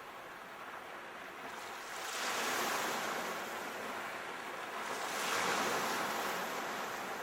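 Ocean waves washing onto a shore, a steady rush with two waves swelling and fading, about two seconds in and again about five seconds in.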